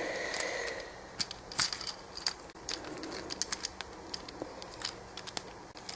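Plastic parts of a Transformers Scout Class action figure clicking and rattling as it is handled and transformed: many small, irregular clicks.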